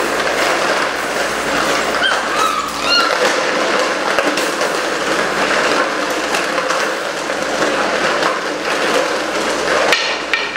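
Continuous clattering and rattling with many small knocks, as eight-week-old Belgian Malinois puppies scramble inside a wire exercise pen after a swung tug toy; a few short high puppy whines come about two to three seconds in.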